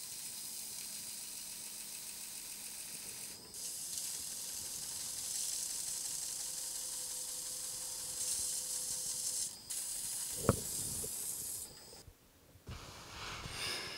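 Steady hiss of an abrasive sanding sponge pressed against the spinning shell of an electric bicycle hub motor, sanding down the epoxy filler. The hiss breaks off briefly twice, and there is a single thump about ten and a half seconds in.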